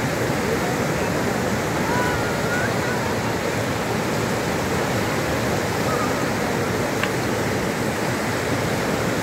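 A river in spate: fast, muddy floodwater rushing in a steady, unbroken noise.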